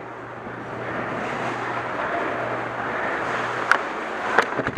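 Steady rushing background noise with a low hum. A few sharp airsoft gun shots crack out near the end.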